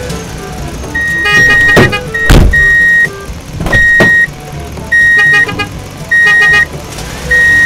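Side-loading garbage truck's warning alarm sounding a steady high beep about once a second while its automated arm lifts and dumps a trash cart. There are a few sharp knocks from the cart and arm, over the low rumble of the truck's engine.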